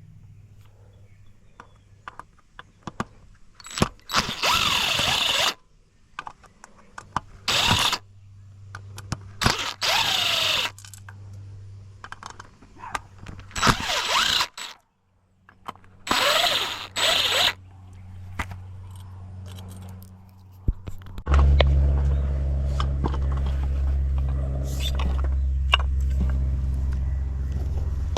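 Power drill backing out screws in five short runs, the motor whine rising and falling with each run. About two-thirds of the way through, a steady low hum starts suddenly and keeps going.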